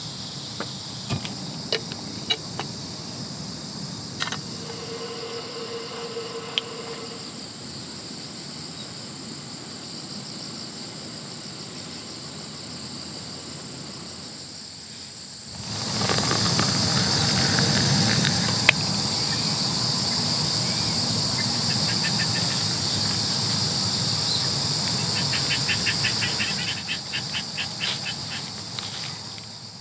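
Insects chirping steadily, with small clicks and rustles from the handling of food and utensils. About halfway through, a louder steady hiss with a low rumble sets in and fades out near the end.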